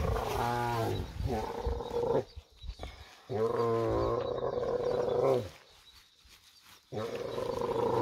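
She-camel groaning loudly three times, each groan about two seconds long, while her prolapsed uterus is being pushed back in by hand.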